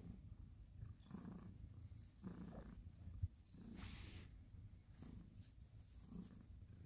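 Ginger domestic cat purring softly while being stroked: a faint low rumble that swells and eases with each breath, about once a second. A single faint tap comes a little over three seconds in.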